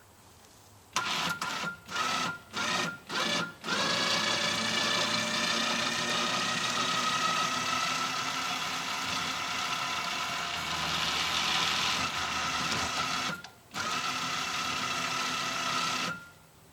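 A motor running in four short bursts, then steadily with a whine for about nine seconds, stopping briefly and running again for a few seconds before cutting off.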